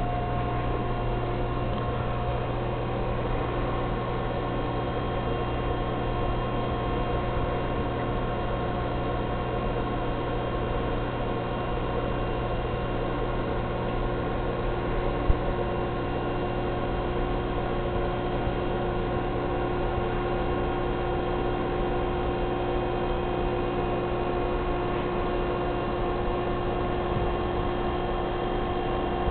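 Steady electrical hum with a few fixed tones over an even hiss, with a single short click about halfway through.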